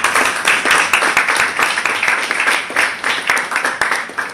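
Small audience applauding, a quick patter of hand claps that thins out and fades near the end.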